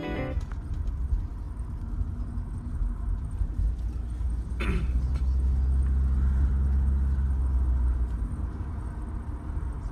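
Car cabin road noise while riding in a moving car: a steady low rumble of tyres and engine, with a brief falling whoosh just before halfway.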